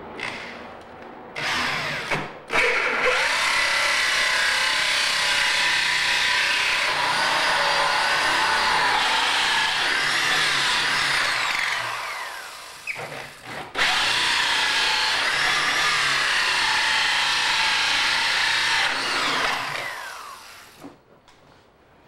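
Electric drill driving a hole saw through a wooden board, in two long runs with a short stop between, the motor pitch falling as each run winds down.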